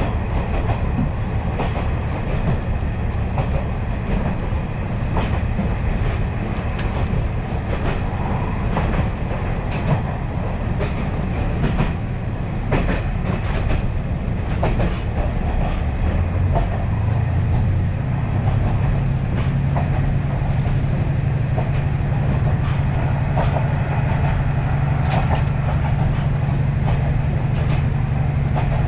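KiHa 40-series diesel railcar heard from inside the car, running at speed: a steady rumble of wheels on rail with scattered clicks over the rail joints. Just past halfway a low, steady engine drone comes up and holds.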